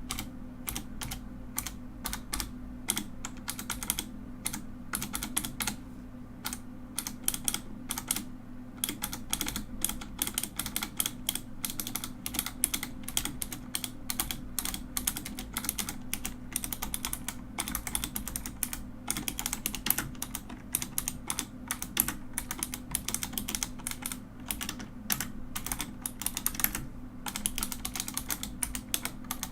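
Fast, continuous typing on a mechanical keyboard: dense, uneven clicking and clacking of the keys, broken by a few brief pauses, over a steady low hum.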